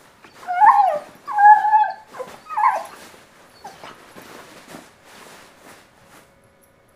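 Dog whining in three short, high, wavering whimpers while trying to bury a bone, followed by a run of fainter scuffling and rustling as the bean bag's fabric is pushed and dug at, fading out about six seconds in.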